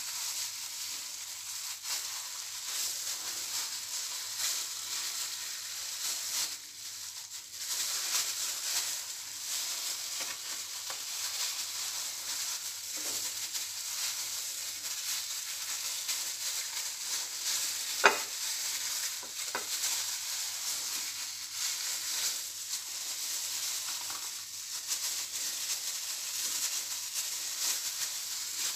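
Thin plastic food-prep gloves crinkling and rustling steadily as hands fold and roll a filled flatbread wrap, with one sharp click about eighteen seconds in.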